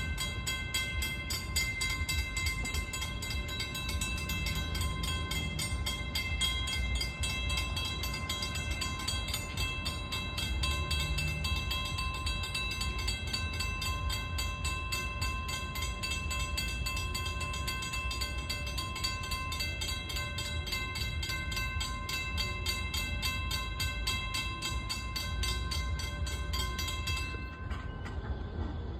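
WCH mechanical level crossing bell ringing with rapid, even strokes during a test activation of the crossing; it stops abruptly near the end.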